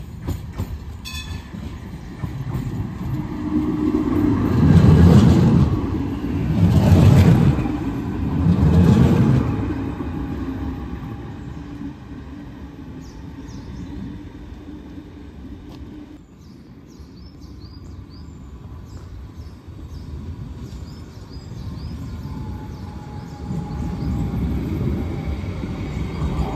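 Croydon Bombardier CR4000 tram running along the track, with three heavy, deep clunking rumbles about two seconds apart as its bogies pass over the trackwork, settling to a steadier running noise. Near the end a second tram's running noise builds as it passes close by.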